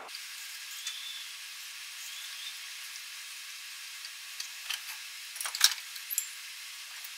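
Steady faint hiss, with a few light metallic clicks and taps from about four to six seconds in as the lockdown nut of a mini tire changer is run down its threaded steel post and a bar is fitted to it.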